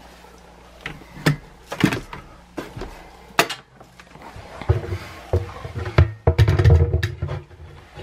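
Handling noises: a few sharp clicks and knocks, then a louder low rumbling rub for about three seconds in the second half.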